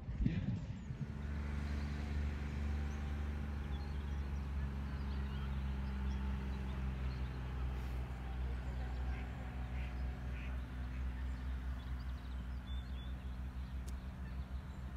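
Ducks quacking now and then over a steady low hum.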